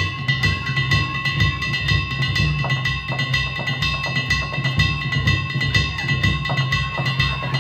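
Danjiri festival music: a big taiko drum beating about twice a second under a constant, high metallic clanging of struck gongs.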